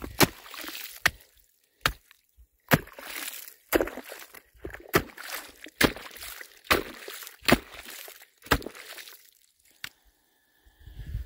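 A rock lashed to a wooden walking stick chopping at lake ice, about a dozen sharp strikes at roughly one a second. Slush and water slosh in the shallow hole with each hit.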